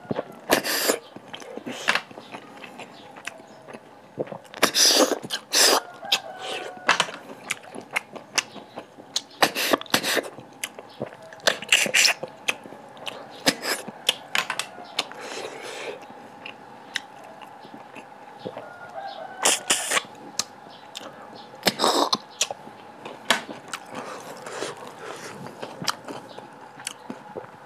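Close-miked chewing and mouth noises of a person eating cooked snails and rice by hand: irregular wet smacks, clicks and crunches, with louder bursts every few seconds.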